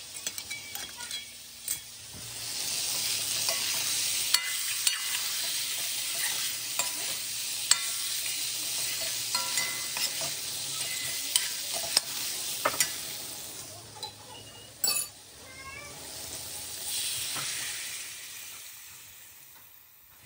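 Chicken pieces sizzling as they fry in a steel wok, stirred with a metal spoon that clinks and scrapes against the pan. The sizzle fades near the end.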